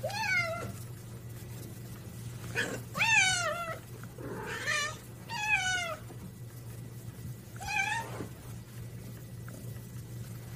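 Domestic cat meowing repeatedly, about six meows a second or two apart, each bending up and then down in pitch, over a steady low hum.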